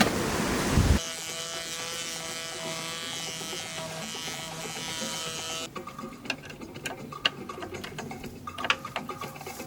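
A small electric motor whines steadily for several seconds, then stops, leaving scattered light clicks and taps.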